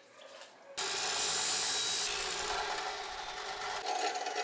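A Powerhouse abrasive cut-off (chop) saw cutting through a metal bar, coming in suddenly about a second in: a loud, steady grinding rush over the motor's steady whine.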